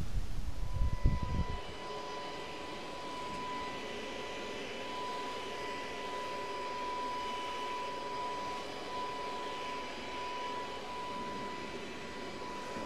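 Corded electric leaf blower running steadily, a constant high whine over the rush of air. A few low thumps of handling come in the first second or so.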